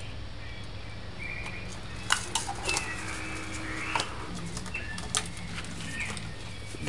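Birds calling in the background, with short steady calls. A few sharp light knocks come from kitchen items being handled on the counter.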